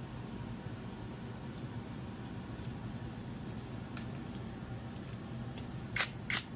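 Low steady hum with a few faint ticks, then near the end two sharp clicks that start the rapid ticking of a Samsung gas range's spark igniter.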